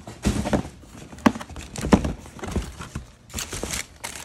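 A cardboard shoebox being opened by hand: a few sharp knocks and scrapes as the lid comes off, then tissue paper rustling near the end.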